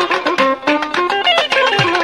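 Instrumental background music with a quick-moving melody; low drum beats come in near the end.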